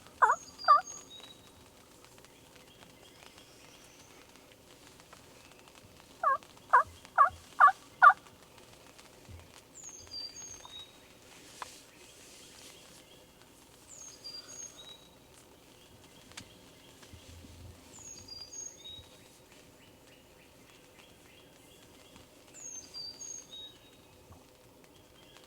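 Turkey yelping: two notes near the start, then a run of five evenly spaced yelps about six seconds in. A small songbird's short, high, descending phrase repeats faintly every few seconds.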